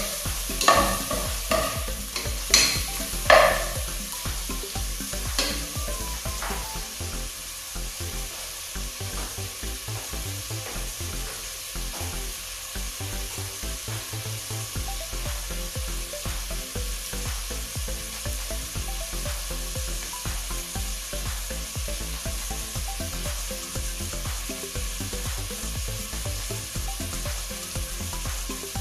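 Chopped ginger and other aromatics sizzling as they sauté in a pot on a gas burner. A spatula knocks and scrapes against the pot a few times in the first six seconds, then only the steady sizzle remains.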